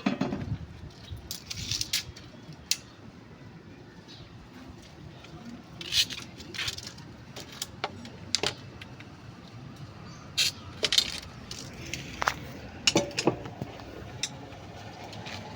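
Irregular metallic clinks, taps and jangles, like small metal parts or tools being handled, with a dozen or so sharper clinks spread unevenly through it.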